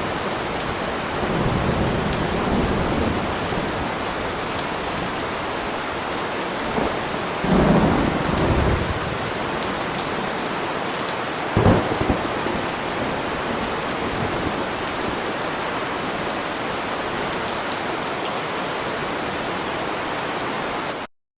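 Heavy, steady rain with thunder: two low rolling rumbles and a sharper crack about twelve seconds in. The audio cuts off suddenly just before the end.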